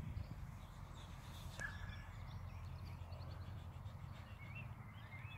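Faint open-field ambience: a low steady rumble with distant birds chirping now and then.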